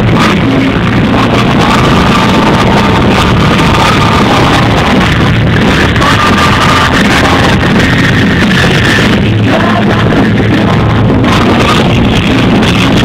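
Live rock band playing at a concert, recorded loud on a phone. The music comes through muddy and distorted, under a steady hiss of static.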